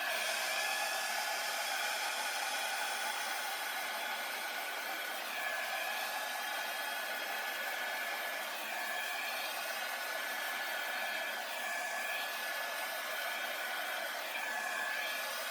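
Hair dryer running on its low setting: a steady blowing hiss with a faint whine that wavers slightly in pitch.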